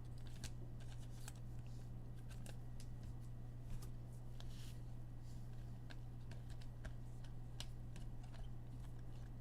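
Sports trading cards being handled and sorted by hand: scattered light clicks and rustles of cards and plastic card holders over a steady low hum.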